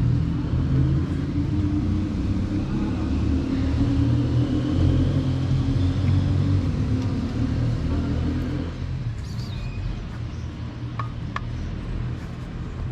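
Steady low rumble that eases off about nine seconds in, with a couple of faint clicks near the end.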